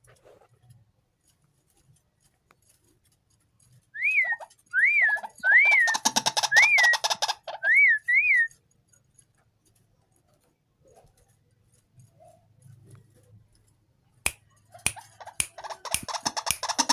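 White-breasted waterhen calling: six short whistled notes, each rising and falling, with a fast harsh rattling croak over the middle of them. Near the end a loud burst of rattling calls begins.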